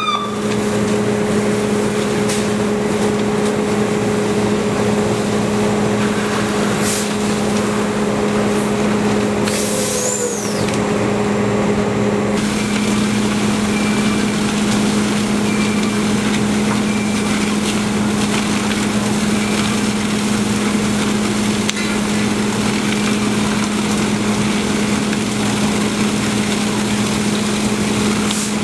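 Fire engine running steadily at pumping speed, a constant low drone over a steady hiss. A short high whistle-like glide comes about ten seconds in, and faint intermittent beeps follow for a few seconds.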